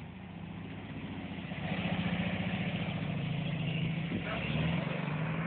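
The air-cooled flat-four engine of a VW bay-window bus running as the bus drives off. It grows louder over the first couple of seconds, then holds steady.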